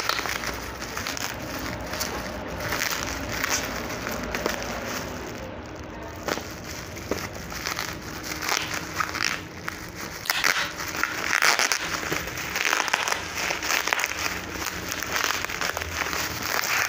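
Bubble wrap and plastic packaging being unwrapped and handled, crinkling and crackling irregularly throughout.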